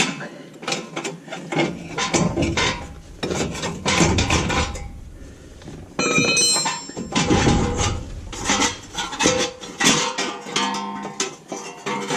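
Repeated hammer blows on the steel wheel hub of a Ford F350 Super Duty front axle, driving it loose from the axle shaft; the strikes are irregular and some leave a metallic ring.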